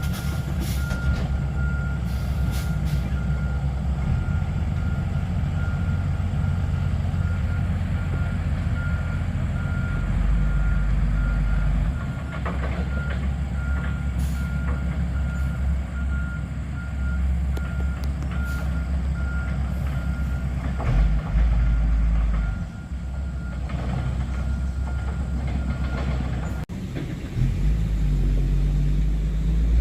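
Heavy diesel earthmoving machine running and working, its engine rumbling and rising and falling with load, while its backup alarm beeps over and over. The alarm stops near the end.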